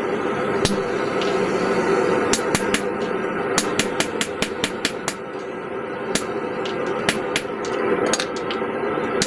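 Hand hammer blows on hot steel at the anvil while forging the eye of a claw hammer head. The blows come in runs of several a second with short pauses between them, over a steady background hum.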